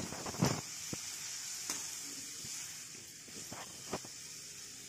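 Diced vegetables (tomato, capsicum, carrot, onion) sizzling in oil in a steel kadhai, with a steady high hiss. A metal spatula scrapes and stirs them against the pan a few times, most strongly about half a second in and again near the end.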